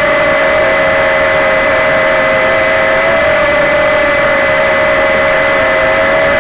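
Walkera QR Ladybird V2 mini quadcopter's motors and propellers whining steadily in flight, recorded up close by a keychain camera riding on the craft. The pitch wavers slightly.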